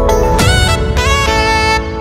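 Background music: a melody of held notes over a low bass, the notes changing about every half second.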